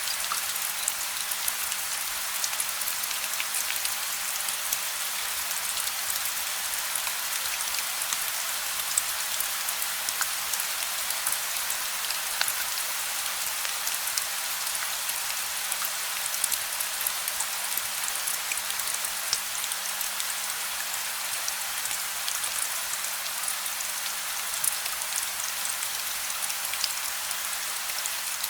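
Steady gentle rain falling, a dense even hiss with many small drop ticks and no thunder. A faint steady low hum runs underneath.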